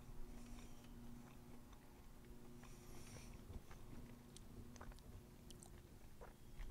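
Faint chewing of a mouthful of crusty, buttered camp bread (pan de campo), with a few small clicks and soft mouth sounds.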